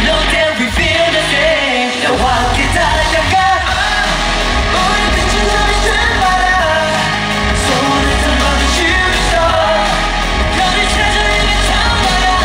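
K-pop dance track with a heavy, steady bass beat and male group vocals, played as a stage performance. The bass drops out briefly near the start and again at about two seconds.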